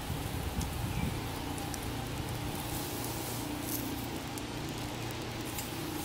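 A pork chop sizzling on a steel grill grate over a campfire, a steady hiss with a few sharp crackles from the fire.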